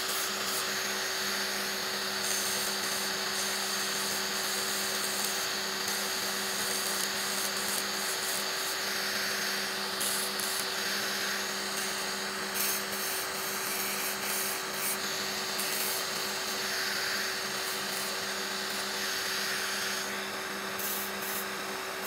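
Electric nail drill running steadily with a flat disc bit, sanding the edge of a nail: a constant low motor tone under a rasping grind.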